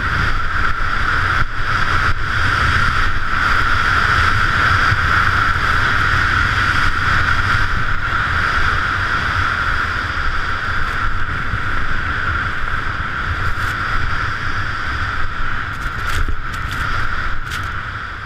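Wind rushing over a body- or helmet-mounted camera's microphone, mixed with skis hissing through powder snow on a continuous downhill run; the sound fades out right at the end.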